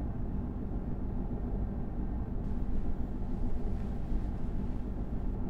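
A steady low rumble with a faint hum running under it.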